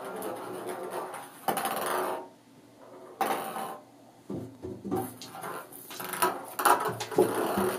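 Ping pong ball rolling and clattering around an empty bathtub as a kitten chases and bats at it, with its paws scrabbling on the tub. The clatter comes in bursts, with a quiet spell of a second or two about two to four seconds in.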